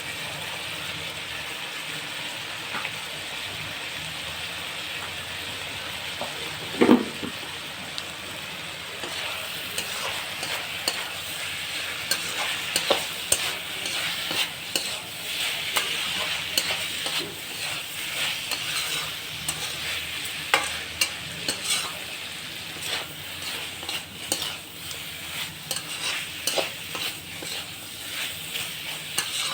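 Chicken curry frying in a kadai with a steady sizzle, while a spatula stirs and scrapes against the pan. The stirring clatter gets busier from about a third of the way in, with one louder knock about a quarter of the way in.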